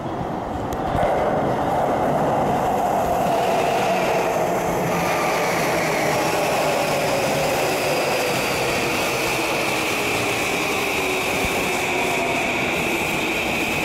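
A JR East E235 series Yamanote Line electric train running past close by. The wheels rumble on the rails, and the motors give a whine that falls slowly in pitch, with a higher tone growing louder in the second half.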